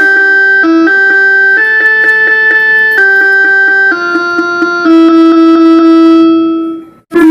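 Electronic horn of an old Korail Line 1 resistance-controlled electric train playing a short tune of about seven steady notes. The pitch steps up and then back down, and the last, lowest note is held longest before it fades out near the end.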